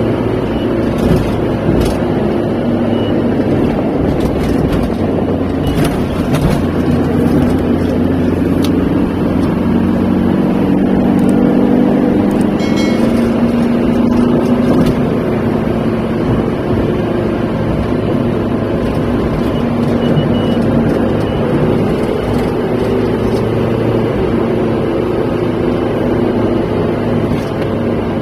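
Steady engine and tyre noise heard from inside a moving vehicle cruising on a highway: a continuous rumble with a hum whose pitch drifts slightly.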